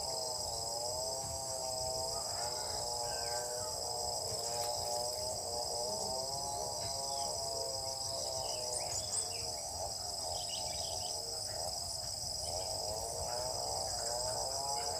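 Steady, high-pitched chorus of insects, with a lower wavering drone beneath it and a few faint chirps scattered through.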